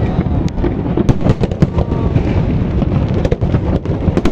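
Fireworks going off in quick succession: a dense run of bangs and crackles over a steady low rumble.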